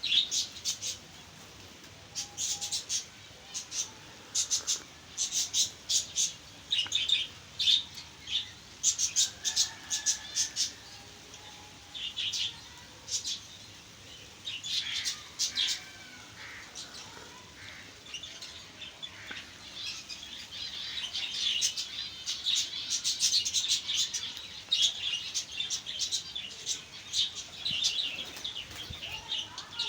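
Small aviary birds chirping: many short, high chirps in quick clusters, growing busier in the second half.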